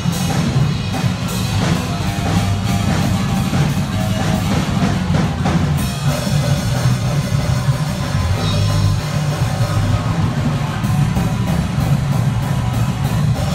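Electric bass guitar and drum kit playing a live improvised punk/jazz jam: a loud, steady bass line underneath a constant run of drum hits and cymbals.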